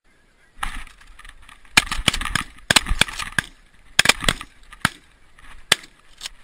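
A volley of 12-gauge shotgun shots in quick succession, about a dozen sharp cracks over some five seconds, with geese honking between the shots.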